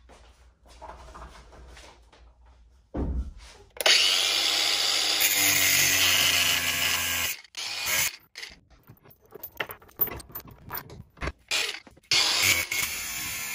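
Angle grinder cutting through a steel chain link clamped in a vise. After a thump about three seconds in, the grinder runs steadily at full speed for a few seconds, then comes in short bursts with gaps, and runs steadily again near the end.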